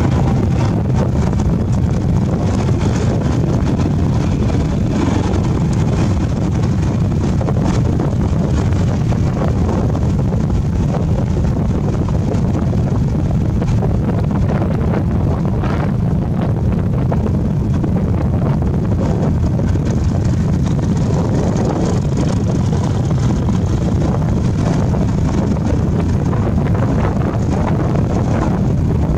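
Steady wind rumble buffeting the microphone of a moving motorbike, with the motorbike's engine running underneath at a constant cruising pace.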